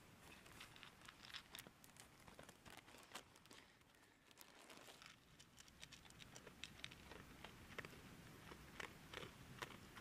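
Faint, irregular crunching and clicking of a dog eating dry kibble from a plastic bowl.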